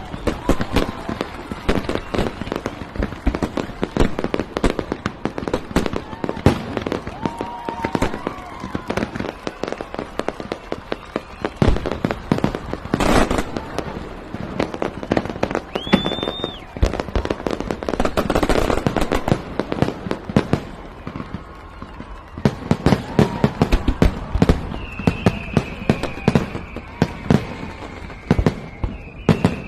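Fireworks display: dense, rapid popping and crackling bursts with heavier bangs mixed in, thickest about 18 seconds in. A short whistle about 16 seconds in and a long, slowly falling whistle from about 25 seconds.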